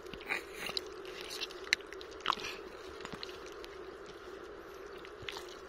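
Wet mud being scraped and squeezed by hand while a thin stick probes a water-filled crab burrow: scattered wet crackles and clicks over a steady low hum.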